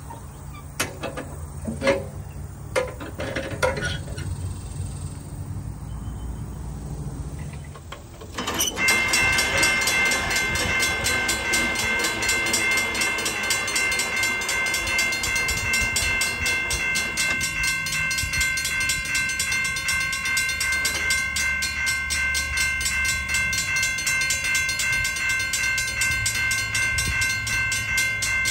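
A few metal clicks and knocks from the crossing gate mechanism's housing being opened, then, about a third of the way in, a railroad crossing warning bell starts ringing suddenly: a loud, rapid, even ringing with several steady tones that goes on without a break.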